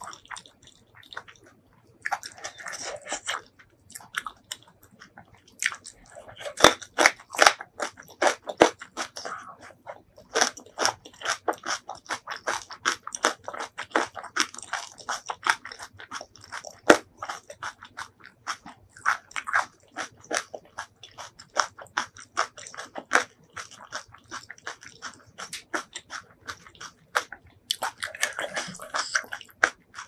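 Close-miked chewing and crunching of stuffed green chili kimchi: many crisp crunches in quick succession, densest through the middle. A short wet slurp comes near the start and another near the end, where noodles are being eaten.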